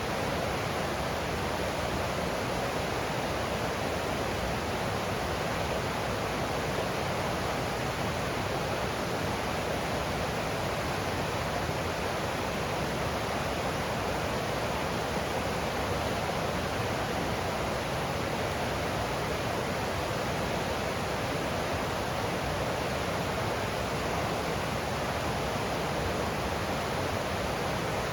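Forest stream flowing, its water making a steady, even rushing sound.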